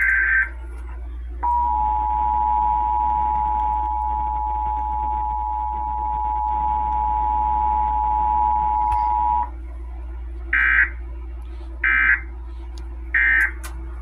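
Emergency Alert System audio from a television's speaker. The last SAME header burst of warbling data tones ends just after the start. Then, about a second and a half in, the steady two-tone attention signal sounds for about eight seconds. Three short data bursts follow near the end: the end-of-message code.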